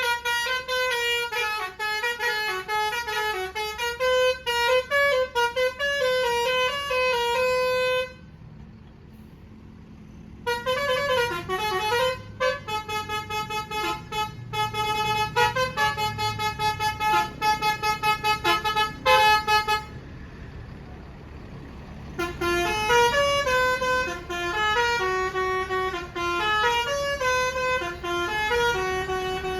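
Basuri telolet bus horn playing a tune of quick stepped notes. It comes in three phrases, broken by short pauses about eight seconds and about twenty seconds in, with a low rumble underneath.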